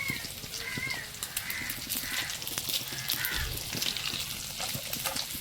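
Fish roe crackling and sizzling in hot oil, with many quick ticks. Over it, a bird gives about five short calls during the first three seconds.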